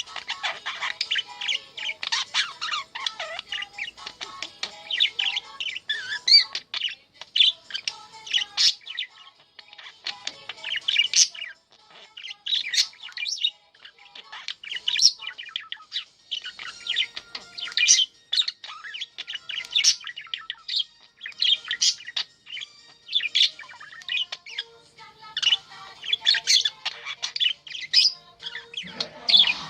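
Budgerigar chattering steadily: a fast, unbroken run of chirps, warbles and short squawks.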